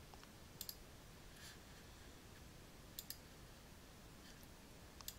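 Computer mouse button clicks while choosing items from menus: a few short sharp clicks, mostly in quick pairs, over faint steady room hiss.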